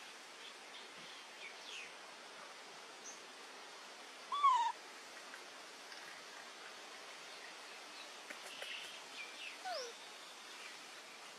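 Baby macaques giving short, high calls over a steady hiss: one clear call that falls in pitch about four and a half seconds in, a few faint chirps later, and a second falling call near the end.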